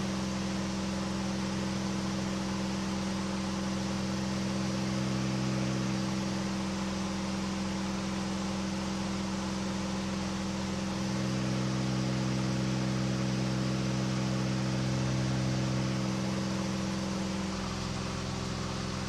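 KR2 light aircraft's engine and propeller droning steadily in cruise at about 2,500 RPM, heard from inside the cockpit, with the low hum slowly swelling and fading.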